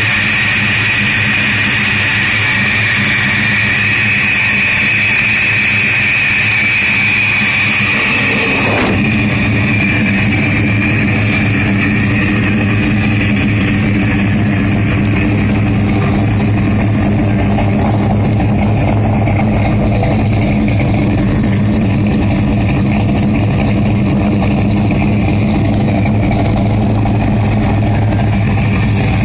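Blueprinted V8 of a 1984 Chevrolet Monte Carlo SS running steadily and loud through new 3-inch exhaust pipes.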